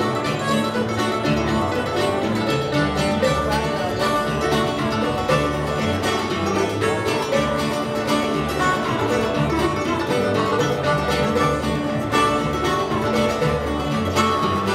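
Live band music with plucked string instruments at a steady tempo. An upright bass plays a regular line of low notes underneath.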